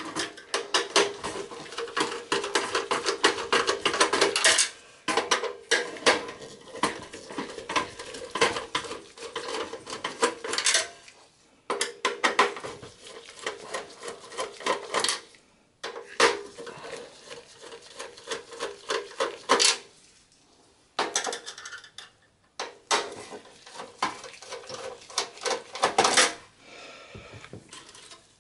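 Screwdriver backing out the motherboard screws in an HP Compaq Pro 4300's steel chassis: runs of quick metallic clicking and scraping, in about half a dozen bursts of a few seconds each with short pauses between.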